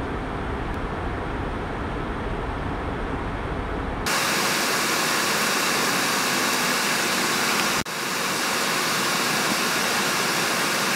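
Steady airliner cabin noise in cruise flight: a low rumble, then, from about four seconds in, a brighter hiss of rushing air with little low end. The noise drops out for an instant near eight seconds.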